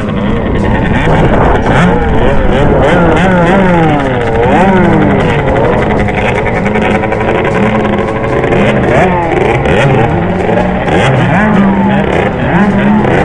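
Several motocross bikes riding, their engines revving up and down in overlapping rising and falling pitches.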